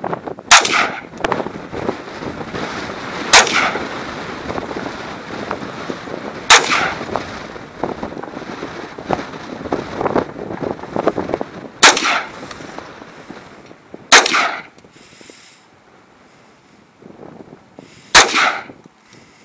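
Six single rifle shots from a Stag Arms AR-15, fired a few seconds apart at an uneven pace.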